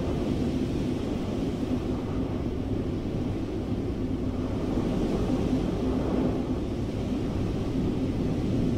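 Steady low rumble of rushing air, as a flying sound effect, with no breaks or sudden events.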